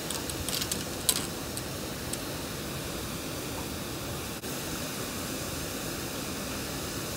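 Steady rush of water gushing from a release outlet into the river, with a few sharp clicks in the first two seconds.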